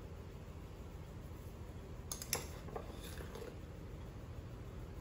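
A few light clicks and taps of a small plastic spoon against a glass spice jar and a food processor's plastic bowl as salt and asafoetida are spooned in, over a low steady hum. The clicks come in a small cluster a little past the middle.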